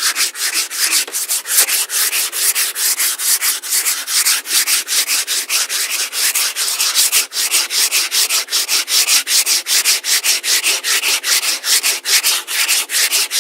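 Sandpaper rubbed by hand over a veneered timber sewing machine table top in quick back-and-forth strokes, about four a second. It is sanding over fresh wood glue in the cracks, working the sawdust into the glue to fill them.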